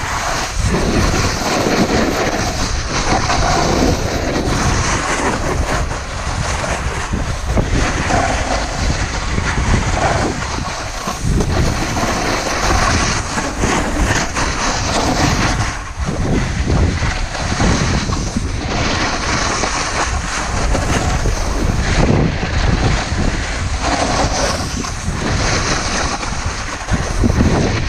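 Snowboard sliding and carving down a firm snow slope: a continuous scraping rush that swells and eases every few seconds with the turns, mixed with wind buffeting the microphone.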